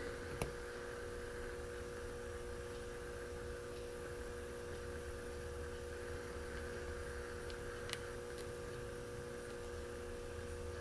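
Steady background hum, with two faint clicks from a steel hook pick working the pins of a mortise lock cylinder: one about half a second in, one about eight seconds in.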